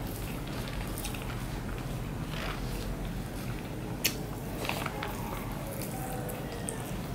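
Soft hand-eating sounds: fingers mixing rice with vegetable curry on a banana leaf, and chewing. There is one sharp click about four seconds in, when a mouthful goes in.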